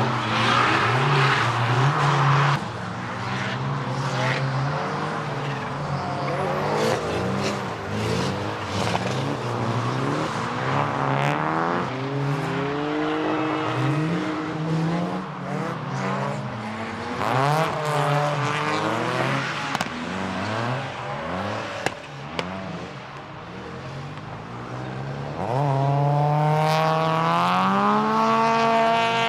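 Retro cars lapping a race circuit: several engines revving up and down through gear changes and corners, with some tyre squeal. Near the end one car passes close, its revs climbing steadily under hard acceleration.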